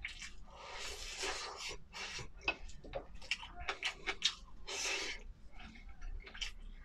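Close-miked eating sounds: chewing braised pork rice, a run of short wet clicks and smacks, with two longer hissing noises about a second in and near five seconds in.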